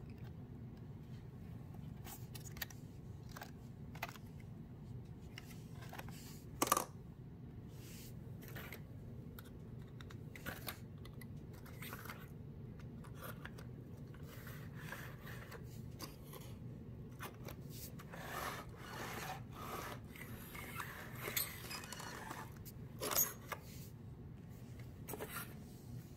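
Scattered light clicks and scrapes of hands handling a paper 3D-puzzle train model, with a sharper click about seven seconds in and a stretch of rustling near the end, over a steady low hum.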